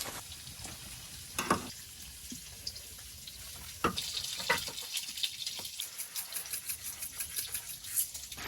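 Food frying on a cast-iron griddle, a low sizzle with a few sharp knocks early on, then a run of small quick crackles in the second half.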